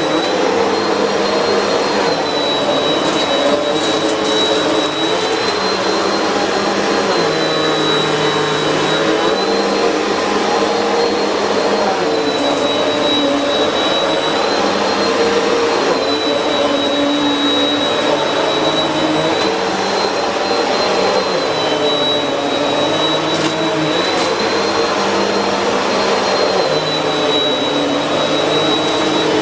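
Simple Value bagless vacuum cleaner running on shag carpet with its brushroll spinning on a new belt: a steady motor whine whose pitch lifts slightly and drops back every few seconds as it is pushed back and forth through the deep pile.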